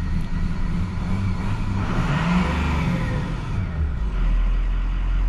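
Ford 6.0L Powerstroke V8 turbodiesel revved once from idle, rising to a peak about two seconds in and falling back to idle. On this first hit of throttle it gives a little spit and sputter.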